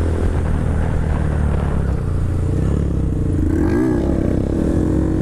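Honda Grom 125 cc single-cylinder motorcycle engines running steadily while riding, with a quick rev up and back down a little under four seconds in as the front wheel is lifted into a wheelie.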